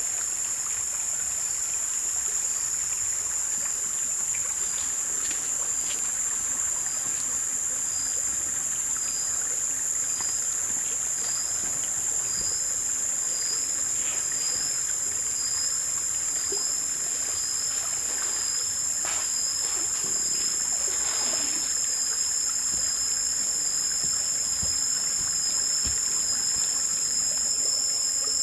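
Steady chorus of forest insects: a high-pitched drone with a second, pulsing trill just below it. A few faint rustles and knocks come through around the middle.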